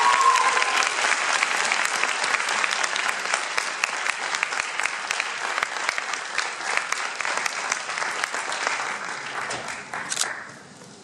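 Audience applauding, loud at first and gradually dying away, ending about ten seconds in. A single high tone rises and holds briefly over the clapping at the very start.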